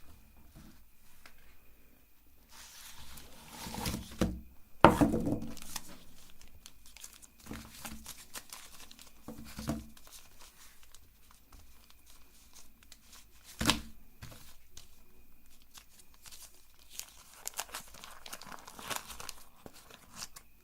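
Chocolate-bar wrappers being torn open and crinkled by hand, in irregular bursts of rustling with a few sharp clicks.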